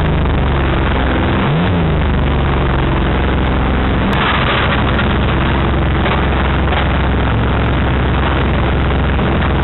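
Banger racing car's engine idling steadily, heard loud from inside the stripped cabin, with a brief blip of the throttle about a second and a half in.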